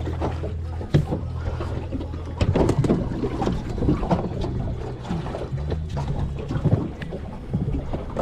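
Small fishing boat on the water: a low steady hum that drops out and returns a few times, with water lapping and scattered knocks against the hull.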